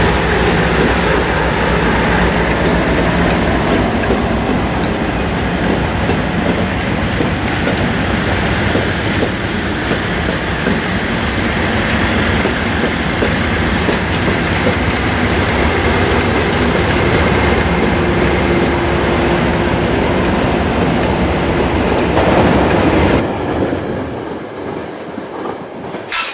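Convoy of coupled diesel locomotives, a Class 56, Class 47s and Class 50 No. 50026 among them, passing close by, with engine hum under loud wheel-on-rail noise. About 23 seconds in the sound drops sharply to a quieter, more distant rumble with a few sharp clicks near the end.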